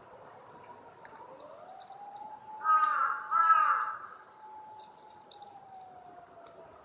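Two loud, short meows in quick succession from a stray cat, under a faint distant siren that slowly rises and then falls away.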